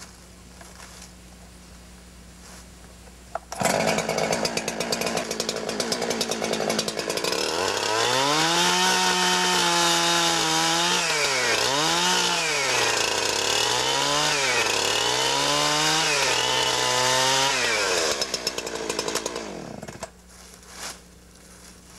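Two-stroke chainsaw cutting a small V notch into a bent-over spring pole. It comes in suddenly about three and a half seconds in and runs hard. As the chain bites into the wood its engine pitch dips and recovers several times. It falls off and stops a couple of seconds before the end.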